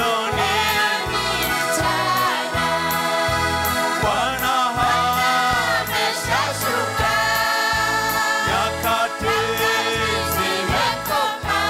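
Church praise team of mixed men's and women's voices singing a Swahili hymn together through microphones, over amplified instrumental backing with a steady low beat.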